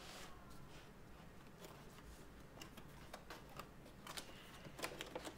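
Faint scattered clicks and light scrapes of a cardboard laptop box being handled as its front flap is worked open.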